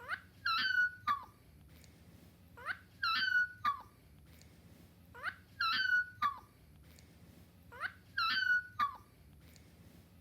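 A pet yawning with a squeaky vocal whine, four times at even spacing of about two and a half seconds. Each yawn goes as a short rising squeak, a held high whine, then a brief falling note.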